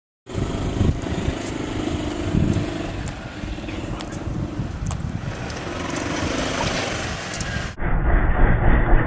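Outdoor vehicle sound with a steady noisy rumble; about eight seconds in it cuts to a louder, rattling rumble of a golf cart being driven.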